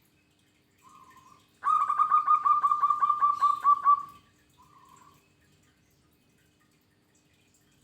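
Zebra dove (perkutut) cooing: a short soft coo, then a loud rapid run of about a dozen staccato coo notes, about five a second, lasting roughly two and a half seconds, then another short soft coo.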